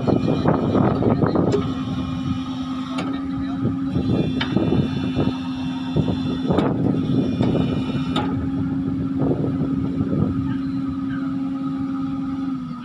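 Excavator hydraulics driving a newly installed vibro hammer attachment under test, a steady mechanical tone over rattling machine noise. The tone cuts off near the end.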